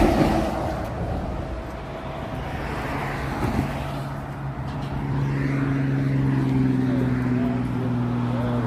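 Highway traffic: a truck passing close at speed as the sound begins, fading within the first second, then a steady low engine drone from about halfway through.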